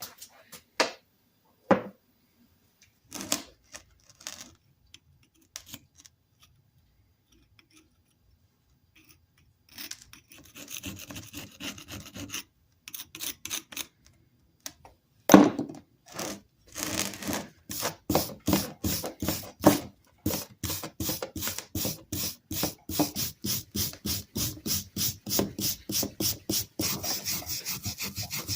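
A rusty old hammer being worked by hand with rhythmic back-and-forth rubbing strokes, about two and a half a second, working off heavy rust. A few scattered knocks of handling come first.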